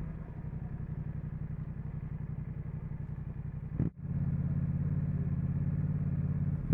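Yamaha MT-07's parallel-twin engine idling through an Akrapovič titanium exhaust, a steady even pulse. The sound cuts out for an instant about four seconds in.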